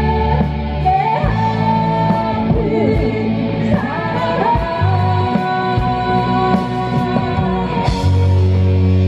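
Live rock band playing: a woman singing over electric guitars, bass guitar, drums and keyboard, with a cymbal crash and a heavier bass line about eight seconds in.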